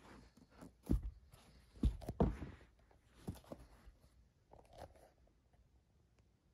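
Rustling and crackling handling noise with a few soft knocks, the loudest about a second and two seconds in, as the phone is moved around over the sneakers and shoebox.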